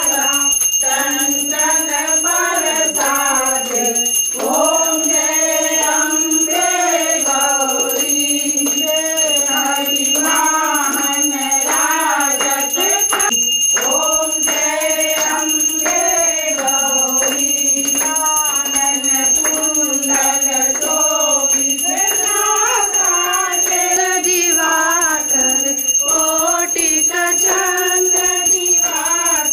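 Group of voices singing a Hindu aarti devotional song, with a puja hand bell ringing steadily underneath.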